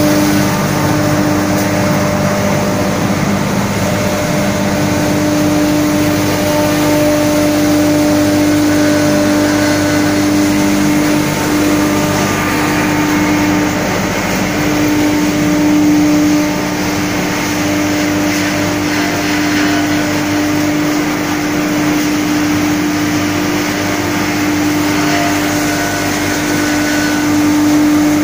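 Straw bale crushing and grinding machine (a rotary cutter tub combined with a hammer mill) running steadily while shredding and grinding straw, a constant hum under a dense rushing noise.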